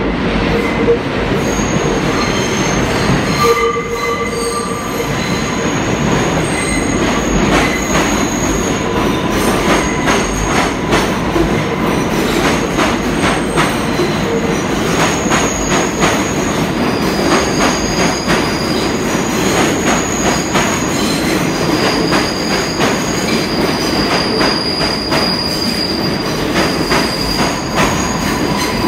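New York City Subway R142/R142A train running into the station on curved track: steady rail rumble with repeated wheel clacks over the rail joints, and high-pitched wheel squeal that sets in a few seconds in and holds on as the cars pass along the platform.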